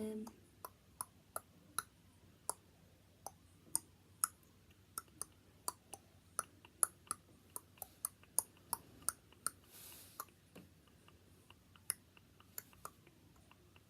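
Faint, quick light clicks, irregular at about two or three a second, of fingers tapping on a phone or tablet touchscreen while flicking through photos.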